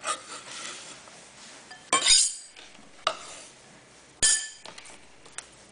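Chef's knife clinking against a glass mixing bowl as diced bell pepper is scraped off a cutting board into it: a few sharp, ringing clinks, the loudest about two and four seconds in.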